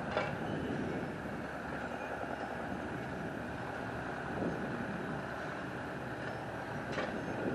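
Heavy construction machinery running steadily at a street work site, with a sharp clank near the start and another near the end.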